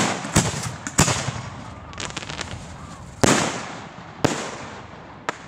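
Aerial firework shells bursting overhead. A loud bang comes right at the start, with more at about a second in, around three seconds and around four seconds, each trailing off in a rolling echo, and smaller pops between them.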